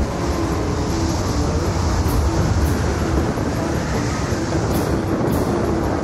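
Storm wind around a tornado: a steady, loud low rumble with a rushing hiss over it.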